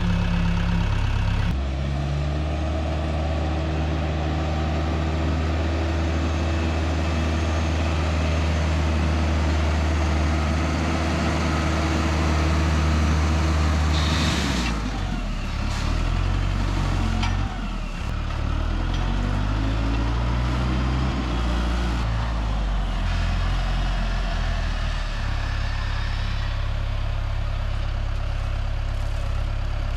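Tractor engine running steadily, then changing pitch up and down about halfway through as it takes on load, then settling back to a steady note.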